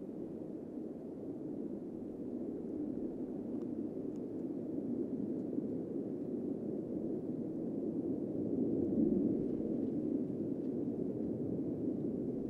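Distant jet roar from four Blue Angels F/A-18 Super Hornets flying past in close formation: a steady low rumble that builds gradually and is loudest about nine seconds in.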